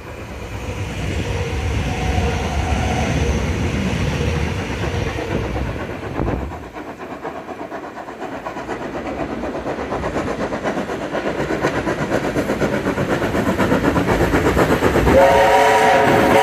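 Heritage steam locomotive 3526 working up a grade toward the listener, its exhaust beats and running gear growing steadily louder. About fifteen seconds in it sounds its steam whistle, a chord of several tones. Earlier, an electric suburban train on the adjacent track makes a loud low rumble.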